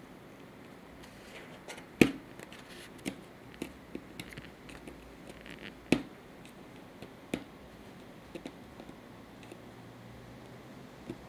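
A cat clawing at the edge of a cardboard box: irregular scratches and sharp clicks as its claws catch and tear the cardboard, the two loudest about two and six seconds in.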